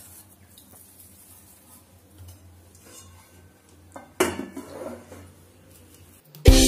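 Faint handling of semolina dough and a glass bowl, then one sudden clatter of kitchenware about four seconds in, with a short ring after it. Music with drums starts near the end.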